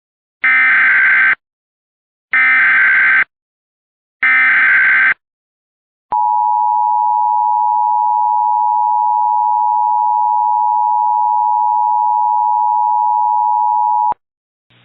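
Emergency Alert System tones: three bursts of the SAME digital header, a screechy data warble about a second each, then the two-tone attention signal held steadily for about eight seconds and cut off sharply.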